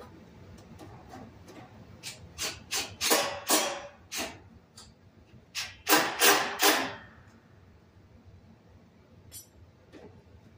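A run of short knocking and scraping strokes of wood on the wooden bench top, in two clusters about two and six seconds in.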